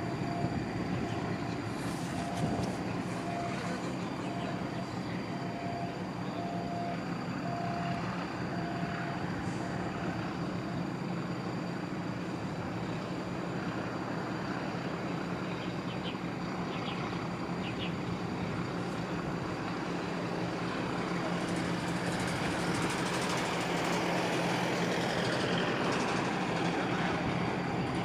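Steady low hum of heavy engine noise, with a reversing alarm beeping at one pitch about once a second for the first ten seconds. The noise swells a little near the end.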